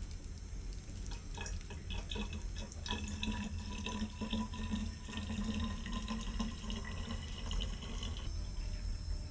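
Green engine coolant pouring from a plastic jug into a car's open expansion tank, gurgling as it fills. It starts about a second and a half in and stops shortly before the end, over a steady low rumble.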